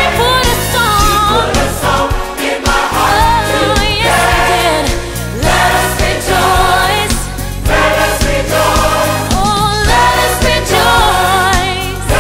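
Gospel choir singing with wavering, vibrato-laden voices over an instrumental backing with a steady beat.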